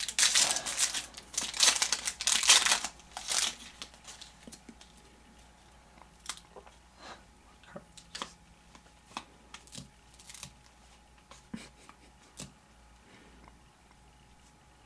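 A shiny foil trading-card pack wrapper crinkling and tearing open, loud and dense for about the first three seconds. Then come soft, scattered clicks and slides as the cards are flipped through by hand.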